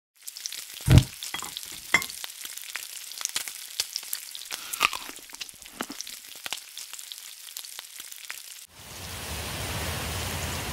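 Food sizzling and crackling in a hot frying pan, with a heavy thump about a second in. Near the end the crackling stops and a steady hiss takes over.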